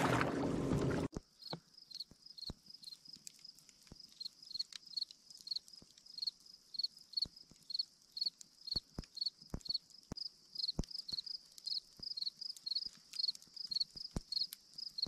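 A loud rushing sound cuts off about a second in. After it, a small animal's high chirp repeats evenly, about three times a second, with scattered sharp clicks.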